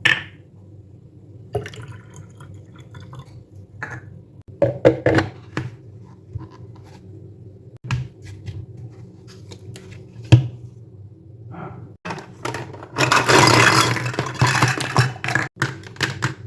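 Water dispenser set being handled: scattered plastic clicks and taps, then water pouring for about two and a half seconds near the end.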